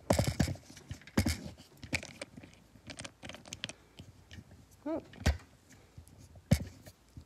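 Scattered clicks and knocks from a camera mount being adjusted and raised by hand. A brief rising hum of a voice comes about five seconds in.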